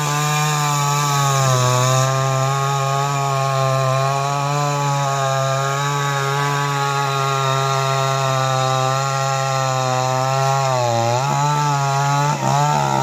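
Forte petrol chainsaw's two-stroke engine running at high revs while cutting through a thick tree limb. Its pitch holds steady, sags slightly under load, and wavers about eleven to twelve seconds in as the cut goes on.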